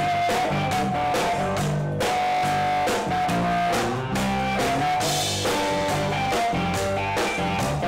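Live rock band playing: a Les Paul-style electric guitar plays a repeating riff over a drum kit's steady beat and a bass line.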